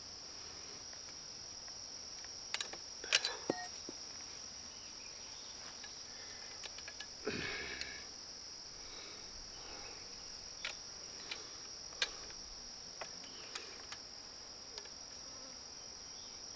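Crickets chirping steadily in a high, even drone, with scattered clicks and a heavier knock about seven seconds in as the multitool's attachment parts are handled.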